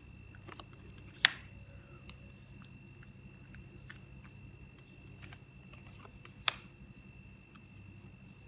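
Magic: The Gathering cards handled by hand, with light clicks and flicks of card stock as they are fanned and moved through the stack, and two sharper snaps, about a second in and about six and a half seconds in.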